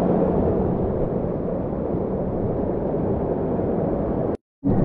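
Waterfall rushing: a steady, dense hiss and rumble of falling water, broken by a brief dropout near the end.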